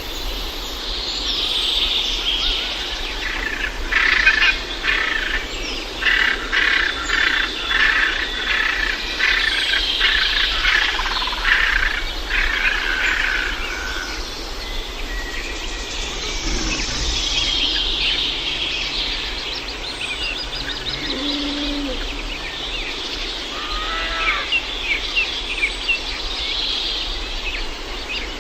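Wild birds singing and chirping, with a dense stretch of rapid repeated notes in the first half.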